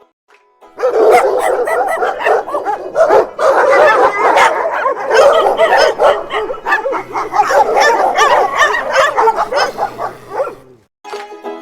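Dogs barking and yipping in a dense run of short, overlapping calls, starting about a second in and cutting off near the end.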